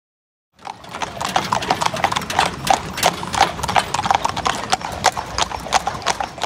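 A cob horse's hooves clip-clopping on a paved road as it pulls a cart: a quick, even run of hoof strikes that starts about half a second in.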